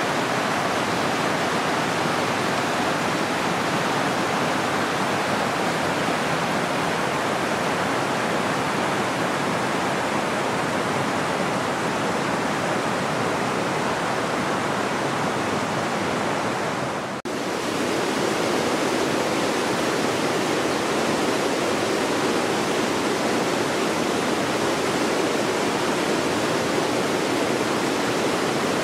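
A river running high after heavy rains, rushing water making a loud, even noise. A little past halfway it drops out for an instant and comes back slightly deeper.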